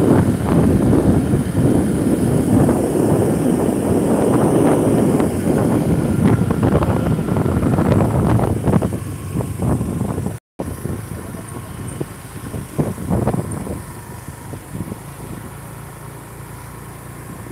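Wind rushing and buffeting on the microphone over the road noise of a moving vehicle. The sound cuts out for a moment about ten and a half seconds in and is quieter after that.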